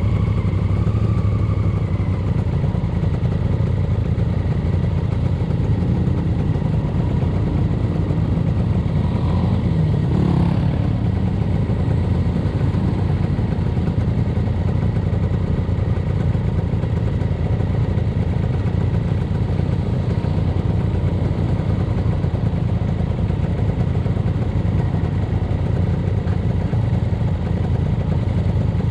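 Yamaha SS motorcycle engine running steadily while riding, with a constant low rumble of engine and road noise.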